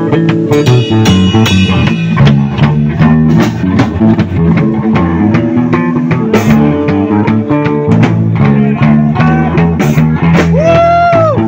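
Live rock band jamming: drum kit, electric bass and electric guitar playing a driving groove, with a long held lead note that bends in pitch near the end.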